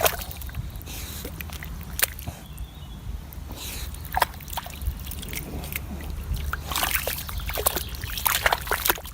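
Sloshing and splashing in muddy water, with scattered sharp splashes over a steady low rumble.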